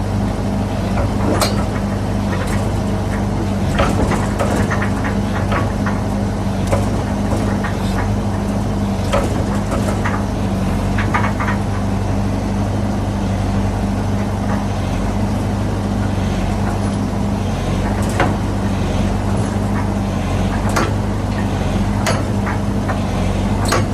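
SANY 135 excavator's diesel engine running at a steady speed, with scattered short clicks and knocks over it.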